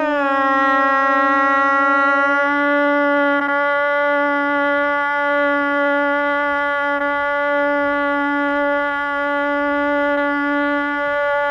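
Conch shell (shankha) blown in one long, steady held note. It starts with a short swoop in pitch and then holds level.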